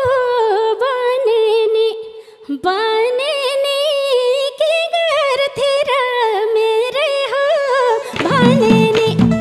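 A woman singing a Nepali dohori folk melody alone into a microphone, in long ornamented phrases with a brief pause about two seconds in. Near the end the band comes in with drums under her voice.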